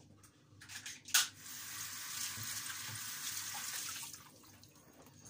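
Water running from a kitchen tap for about three seconds as a steady hiss, starting with a sharp click.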